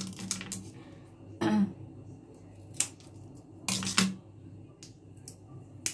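Hard shell of a boiled water caltrop (buffalo-horn nut) being pried and peeled apart by hand: a few short, separate clicks and crackling, scraping bursts, the strongest about one and a half and four seconds in, over a low steady hum.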